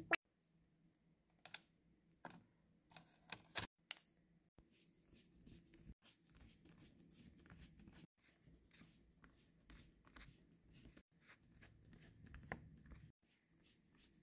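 A few sharp clicks and taps in the first few seconds, then the faint scratchy ticking of a precision screwdriver turning screws into a Razer Blade laptop's bottom cover.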